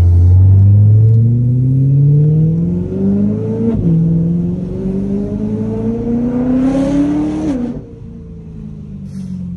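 Straight-piped BMW E92 M3's V8 exhaust, heard from inside the cabin, pulling hard with the pitch climbing steadily, a quick shift about four seconds in, then climbing again. Near the end the driver lifts off and the engine note drops away to a lower, fading drone.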